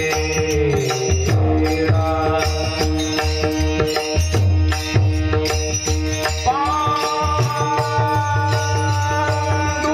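Marathi devotional kirtan music: a singer's voice holds long notes over a steady drone and drum accompaniment, with one long note rising and held about six and a half seconds in.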